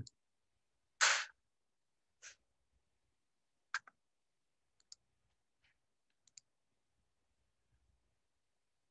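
A few faint, sparse clicks, with one short puff of noise about a second in as the loudest sound and a weaker one a second later.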